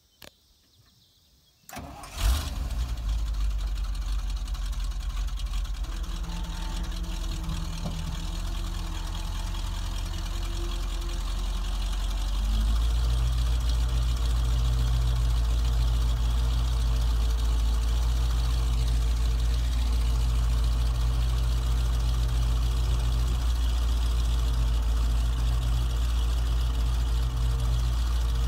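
A 1976 Chevy C65 grain truck's 427 V8 is cranked and catches about two seconds in, then idles. About twelve seconds in it settles into a louder, steady, deeper run as the dump hoist takes load and the grain box starts to lift.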